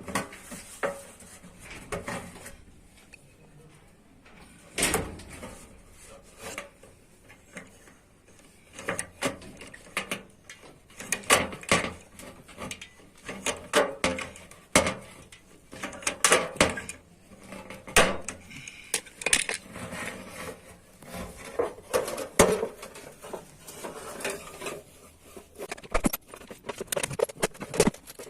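Metal clanking and clinking at irregular intervals, as a sheet-metal bread-baking pan is worked and handled by hand.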